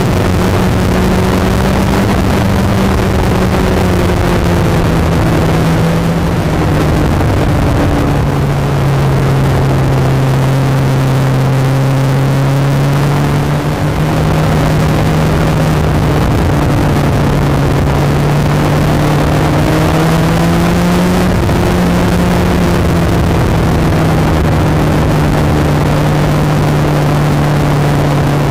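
Kawasaki ZX-14 inline-four engine running at speed, heard from the bike itself with a steady rush of wind noise. Its pitch sinks over the first several seconds, climbs again around twenty seconds in, then eases off slightly.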